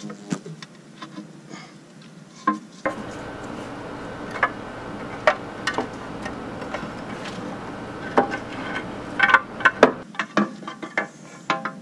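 Scattered sharp metallic clinks, knocks and scrapes as the timing chain cover is worked off a Caliber SRT4 engine, with a quick run of clinks near the end. A faint low rumble sits underneath from about three seconds in to about ten.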